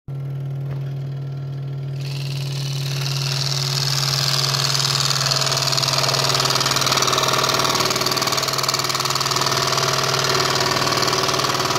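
Electric scroll saw running with a steady motor hum, its blade cutting through a packet of stacked veneer for Boulle marquetry; the rasp of the cut comes in about two seconds in, grows louder, then holds steady.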